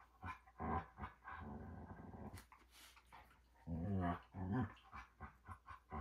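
Standard poodle growling in play: a string of short, low growls, with a longer drawn-out growl about a second in and another cluster near the middle.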